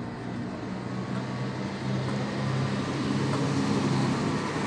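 Steady low engine hum over a noisy background, growing louder about two seconds in.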